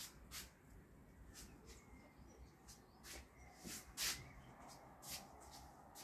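Quiet outdoor background with scattered short clicks and ticks, about one every half second, the loudest about four seconds in.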